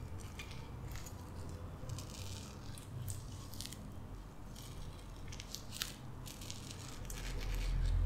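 Kitchen knife cutting and scraping along a piece of ripe mango, making irregular soft wet scratchy strokes with small clicks. A low rumble swells near the end.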